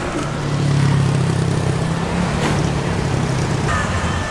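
A motor vehicle's engine running, a low steady hum that comes up about half a second in and eases off after about two seconds, over constant street background noise.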